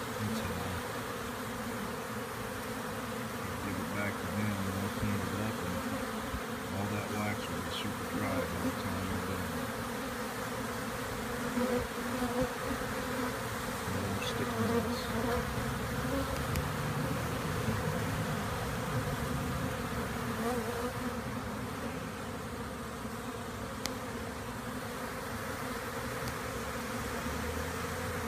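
A swarm of honey bees buzzing steadily over wet extracted wax comb and cappings as they clean up the leftover honey. The many-bee hum swells and fades a little.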